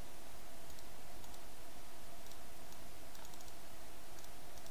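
Faint, scattered clicking of a computer mouse and keyboard over a steady background hum.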